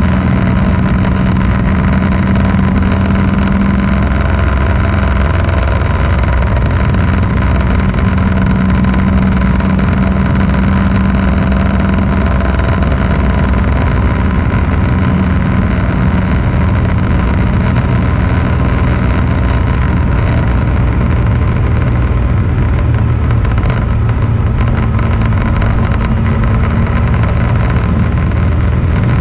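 Engine and road noise from aboard a vehicle cruising at a steady speed, the engine note holding steady with only small shifts in pitch.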